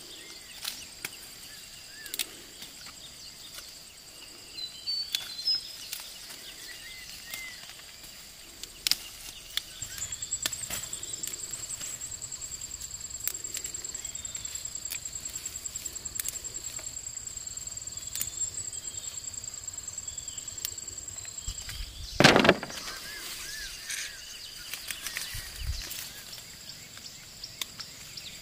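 Outdoor garden ambience: an insect's high, pulsing trill runs for about twelve seconds in the middle, with a few bird chirps. Scattered small clicks and rustles come from chilli plants being picked, and there is one loud knock or rustle about 22 seconds in.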